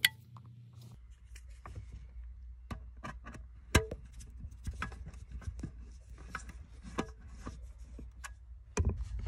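Phillips screwdriver working the screw terminals of a plastic LED controller's terminal block, with scattered small clicks and scrapes of screw, wire and plastic and one louder click about four seconds in.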